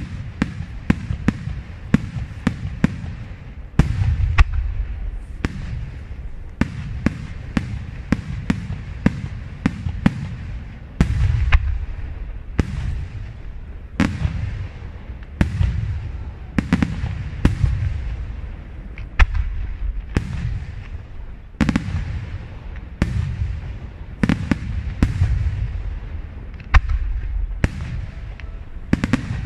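Aerial firework shells bursting in quick succession at a night display: sharp bangs about one or two a second, each followed by a low rolling rumble.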